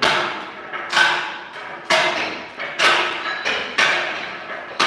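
A floor tile being tapped down into its wet mortar bed: six even, sharp knocks about a second apart, each ringing briefly before the next.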